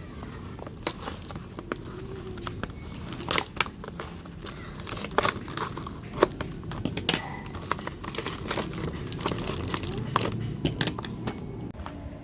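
Packaging being handled and opened during an unboxing: irregular crinkling with sharp crackles and snaps.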